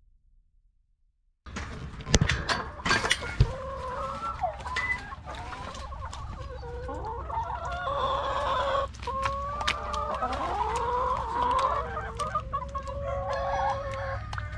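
Near silence for about the first second and a half, then backyard chickens clucking and calling without a break. A few sharp knocks come between about two and three and a half seconds in.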